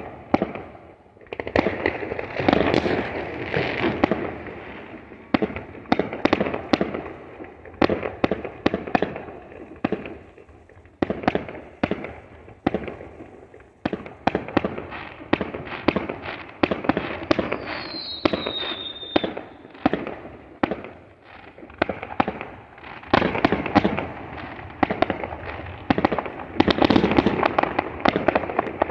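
Fireworks going off in quick succession: a near-continuous string of sharp bangs and crackling volleys, thickest near the start and toward the end. A short falling whistle comes about two-thirds of the way through.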